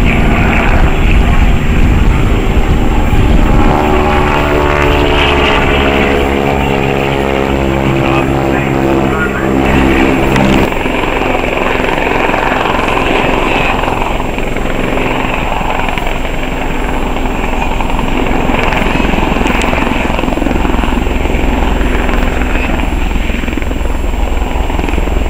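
Propeller aerobatic plane's engine, its pitch falling steadily as the plane flies past. About ten seconds in, the sound switches abruptly to a helicopter's rotor and engine noise passing overhead.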